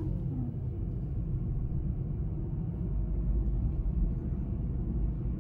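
Car driving, heard from inside the cabin: a steady low rumble of engine and tyre road noise.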